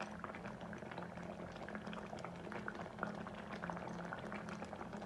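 Thick paneer-and-peas gravy simmering in a kadai, its bubbles popping in a dense run of small, irregular clicks over a low steady hum.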